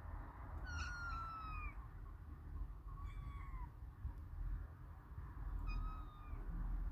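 Kitten meowing three times, each meow sliding down a little in pitch.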